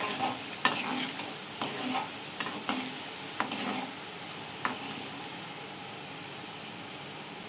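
Spice-and-flour-coated chickpeas deep-frying in hot oil in a steel kadai, a steady sizzle, with sharp clicks of a spatula stirring against the pan in the first half, fewer later. The chickpeas are being fried on medium heat until crunchy.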